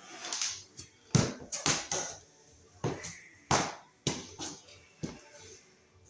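A string of irregular knocks and thumps on a plywood subfloor as someone gets up and steps away: sharp, hollow-sounding impacts, strongest in the first few seconds and thinning out toward the end.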